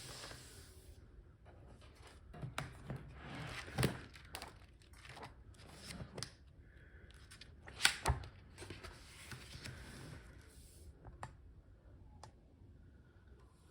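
Hands handling a book and its packaging: irregular rustling, crinkling and tearing with a few sharp knocks, the loudest about four and eight seconds in.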